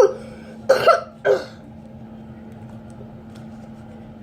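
A person coughing about three times in the first second and a half, followed by a faint steady hum.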